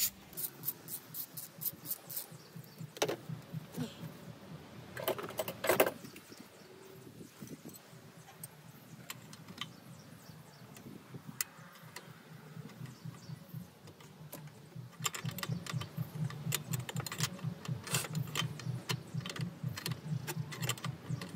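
Hand ratchet clicking in short bursts as a bolt is worked loose, with tools clinking, then a long fast run of ratchet clicks in the last several seconds.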